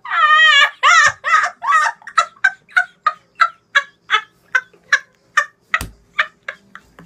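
A boy's uncontrollable high-pitched laughter: a long wavering squeal, then a fast run of short shrill yelps about four or five a second that spaces out near the end.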